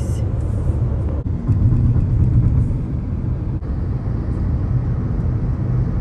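Car driving on the road: a steady low rumble of engine and tyre noise.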